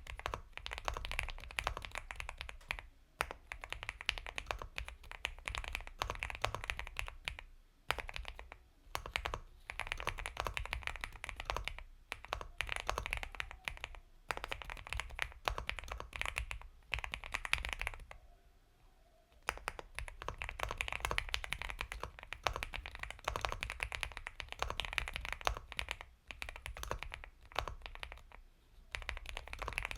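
Steady typing on an Epomaker x Feker Galaxy 80 mechanical keyboard with Gateron Milky Yellow Pro linear switches: soft, creamy keystrokes in quick runs, broken by brief pauses, the longest a little past halfway.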